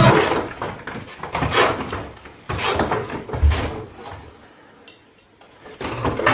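A few separate clattering knocks about a second apart, each dying away briefly.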